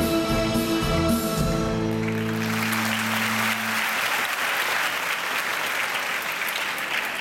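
A string orchestra, violins to the fore, holds its final chord; the high notes die away first and the low notes stop about four seconds in. Audience applause rises under the chord at about two seconds and carries on.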